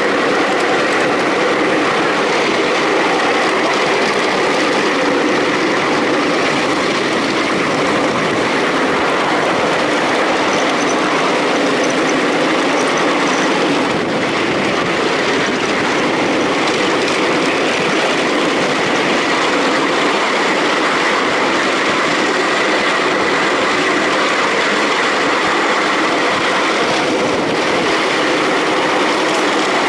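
Ride-on miniature park railway train running along its track: a steady rumble and rattle of small wheels on the rails and the wagons, with a faint steady high whine throughout.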